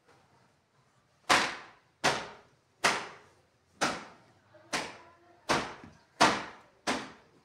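A dusting cloth flicked hard against cupboard doors: eight sharp slaps, about one a second, starting a little over a second in.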